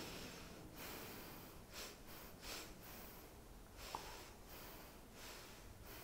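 Soft breathy air noise in irregular puffs and swells, the airy sound of a contemporary chamber piece for bass recorder and electronics, with a brief high blip just before the middle.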